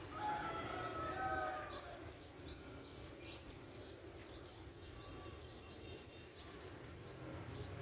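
Outdoor ambience: a steady low background rumble with scattered short, high bird chirps. A louder wavering sound stands out in the first two seconds.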